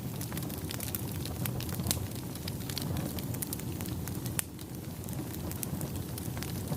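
Wood fire burning: a steady low rumble of flames with frequent, irregular sharp crackles and pops from the burning wood.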